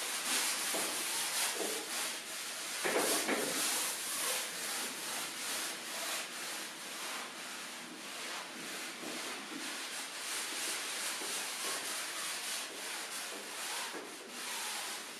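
Paint sponges rubbed and dabbed across a painting surface: a continuous scratchy rubbing made of many short strokes, with one louder scrape about three seconds in.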